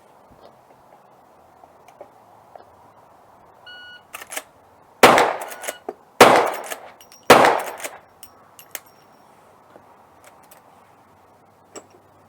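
Three rifle shots a little over a second apart, each sharp crack trailing off in a ringing echo, with a few small metallic clicks of the action around them.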